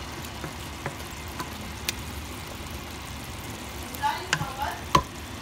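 A wooden spatula stirring thick laing in a stainless steel pot, with a few light clicks against the pot over a steady low hum, and a sharp ringing knock on the pot near the end.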